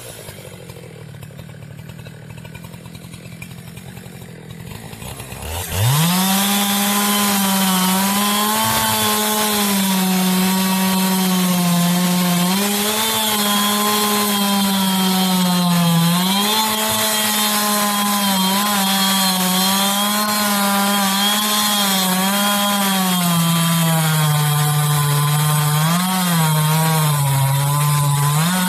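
Two-stroke chainsaw running quietly for about six seconds, then opened up to full throttle and cutting into a big pine trunk. Its engine pitch sags and recovers again and again as the chain bites under load.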